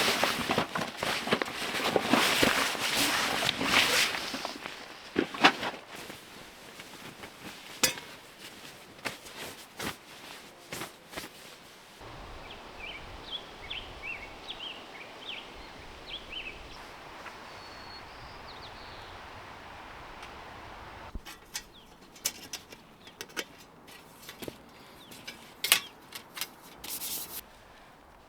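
Rustling and knocking of camping gear being handled, loudest in the first few seconds and returning in scattered clicks near the end. In a steadier stretch in the middle, small birds chirp.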